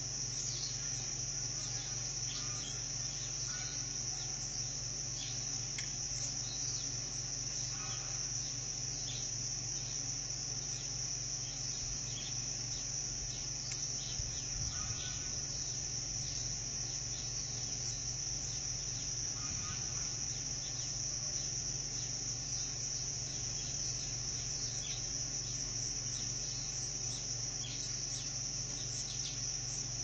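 Steady high-pitched chorus of insects, with short chirps scattered through it.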